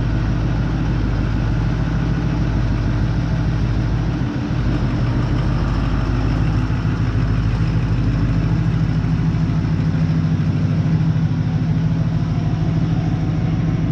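Truck engine idling steadily with an even firing rhythm.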